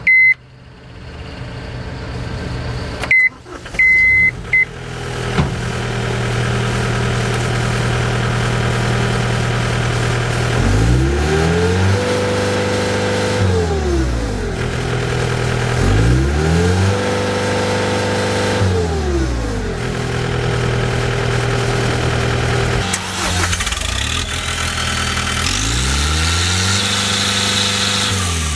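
Diesel engine of a 2012 John Deere 323D compact track loader: a few short electronic beeps, then the engine starts a few seconds in and settles to a steady idle. It is revved up, held at speed and brought back down to idle three times.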